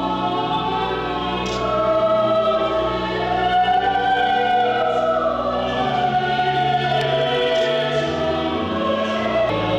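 Choir singing in harmony over sustained low held chords that change every few seconds.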